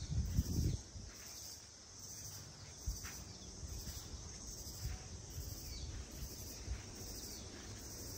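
Evening chorus of insects such as crickets: a steady, high chirring with a faint regular pulse. Low rumbling on the microphone comes and goes, loudest in the first second.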